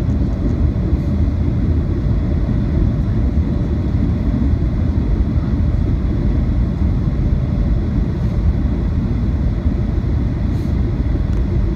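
Jet airliner cabin noise on final approach: a steady low rumble of the engines and rushing air, heard from inside the passenger cabin.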